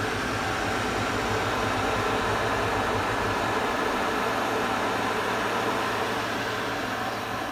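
Boxford A Mk 1 lathe running slowly, driven by a 180-volt permanent-magnet treadmill DC motor on a PWM speed controller: a steady hum with a hiss. The speed is being turned down, and the low rumble eases about four seconds in.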